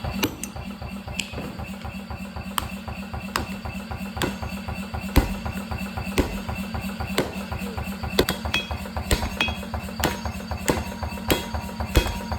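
A blacksmith's hammer striking metal on an anvil, sharp blows about once a second, some ringing briefly, over background music with a steady low beat.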